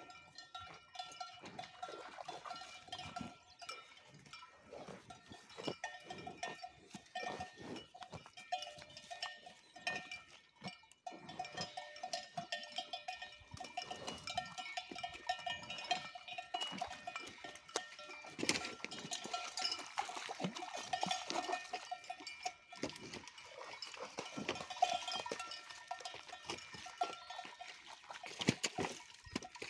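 Bells on grazing Simmental cows clanking and ringing at irregular intervals, several bell tones overlapping.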